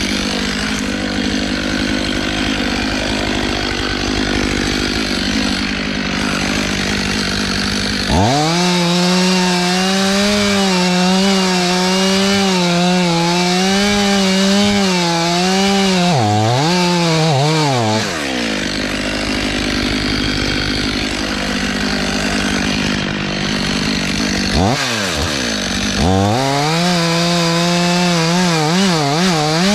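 Two-stroke chainsaw running at high revs while felling a white oak. Its note wavers and switches between noisier stretches and a clear, strong whine, dipping and climbing back twice as the saw is loaded in the cut.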